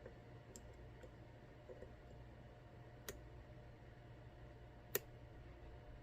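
Faint, sparse clicks of a pick working a sidebar pin inside an ASSA Twin 6000 high-security lock cylinder, with two sharper clicks about three and five seconds in, over a low steady hum.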